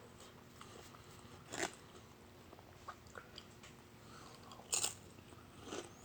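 Close-miked eating: chewing with two sharp, crunchy bites, one about a second and a half in and a louder one about five seconds in.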